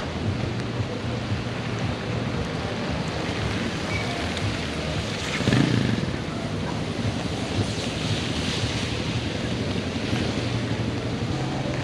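Steady heavy rain in a thunderstorm, with wind buffeting the microphone. A short, louder low rumble comes about halfway through.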